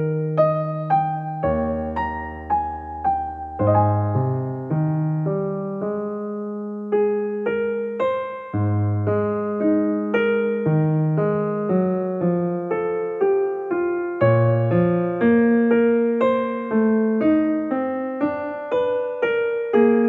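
Slow, gentle piano music: a melody of single notes, each struck and fading, over held bass notes.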